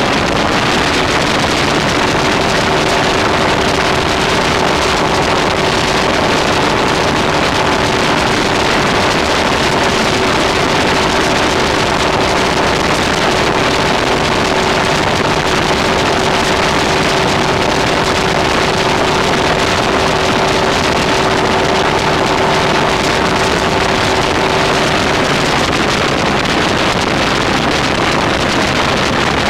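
Open motorboat's exposed inboard engine running at a steady speed while under way, a constant engine note under a loud, even rush of wind and water.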